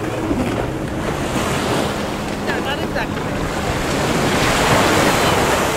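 Shallow sea surf washing and breaking around people standing in the water, with wind buffeting the microphone. The wash swells louder about four seconds in.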